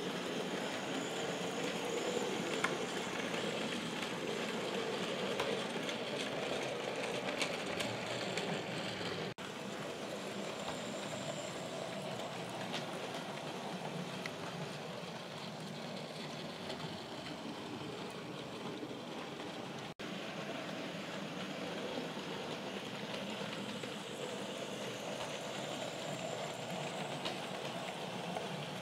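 OO-gauge model steam locomotive and goods wagons running along model railway track: a steady whir of the model's motor and wheels on the rails, with faint clicks over the rail joints. The sound briefly cuts out twice.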